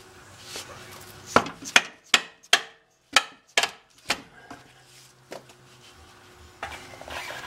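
A run of about seven sharp metallic knocks with a short ring, roughly two a second, from about a second and a half in, as a hand tool strikes the transmission and crossmember into line under the car. Fainter knocks come before and after.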